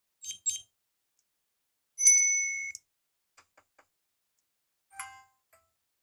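Samsung Galaxy Watch 5 Pro's speaker playing short previews of different notification sounds as the list is scrolled: a quick pair of chirps at the start, a bright ding about two seconds in, and a bell-like tone about five seconds in, with a few faint ticks between them.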